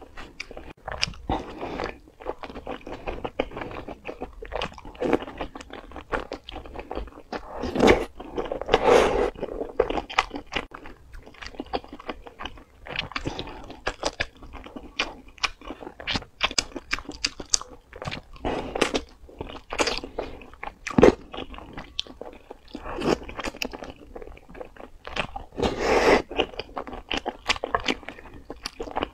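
Close-miked eating sounds from wide, slippery starch noodles in chili oil: steady chewing and slurping, with many quick wet mouth clicks and smacks. A few louder, longer slurps come about a quarter of the way in and near the end.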